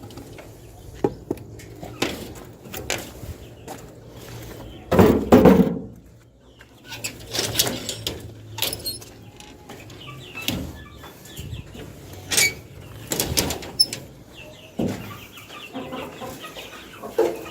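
Chickens clucking, with scattered short sharp knocks throughout and a louder rustling burst about five seconds in.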